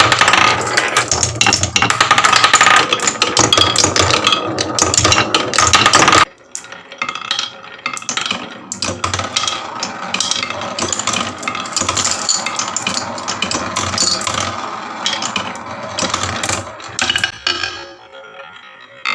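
Glass marbles rattling and clicking down a wooden HABA marble run. A dense, loud clatter of many marbles drops off suddenly about six seconds in, and sparser clicking and rolling follows.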